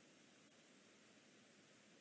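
Near silence: a faint, even hiss with no distinct sounds.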